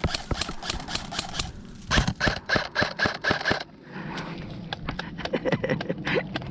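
Airsoft gunfire: a quick, regular string of sharp shots lasting about a second and a half, starting about two seconds in, with scattered single clicks before and after.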